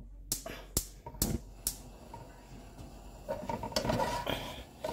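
Kitchen sounds at a cooking pot: four sharp clicks in the first two seconds, then softer rustling and clatter.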